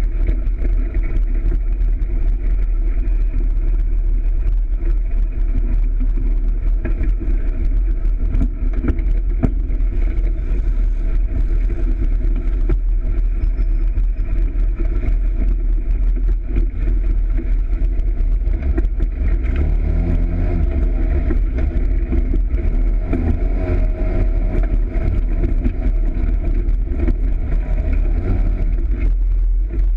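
Polaris RZR side-by-side's engine running as it drives a bumpy dirt trail, heard from a camera mounted on the vehicle, with a deep steady rumble and rattles. The engine note rises and falls with the throttle, busiest in the second half.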